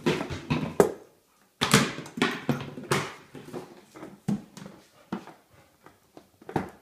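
Plastic bottle crinkling and crackling as a Siberian husky chews on it, then, after a short break about a second in, a boxer knocking and batting a plastic bottle about on a tiled floor, the knocks getting sparser.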